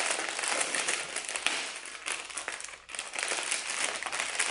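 Clear plastic packaging crinkling and rustling as hands unwrap and handle a bundle of small zip bags of diamond painting drills, with a brief lull just before three seconds in.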